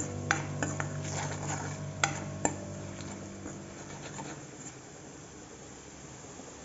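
Food sizzling in hot oil in an iron wok while a metal ladle stirs it, clinking and scraping against the pan several times in the first couple of seconds, then stirring more quietly.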